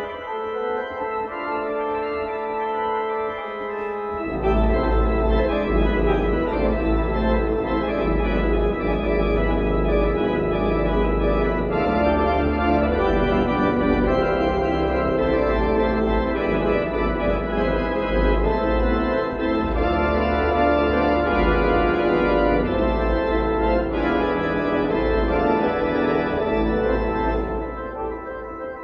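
Organ playing sustained chords; about four seconds in, deep bass notes come in and the music grows louder, then it falls away again near the end.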